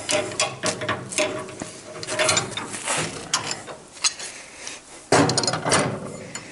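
Metal clicking and clanking as a 10mm steel rod is worked in a cast-iron bench vise, with a thin squeal through the first couple of seconds and a louder clank about five seconds in.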